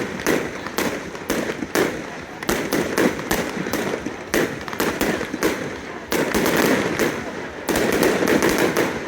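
Aerial fireworks going off in rapid succession: many sharp bangs and crackles, thickest about six seconds in and again near the end.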